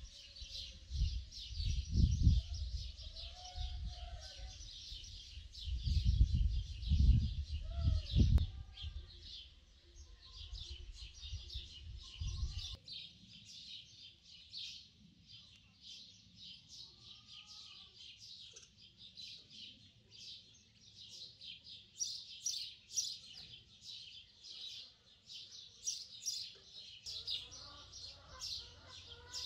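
Many small birds chirping rapidly and continuously in a dense chorus. Low rumbling bursts come and go through roughly the first nine seconds.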